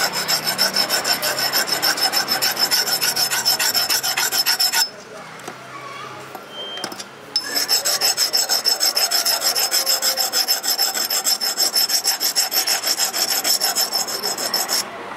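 Hand file rasping back and forth across a forged steel axe head held in tongs, in quick even strokes with a high ringing note from the steel. The filing stops for a couple of seconds about five seconds in, then resumes at the same pace.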